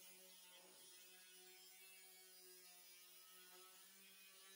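Faint, steady whine of an electric angle grinder cutting through a steel pickup-bed side panel.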